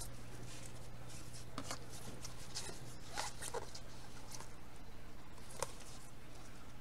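Stiff cardboard football trading cards sliding and flicking against one another in gloved hands: scattered short, papery scrapes and ticks over a steady low electrical hum.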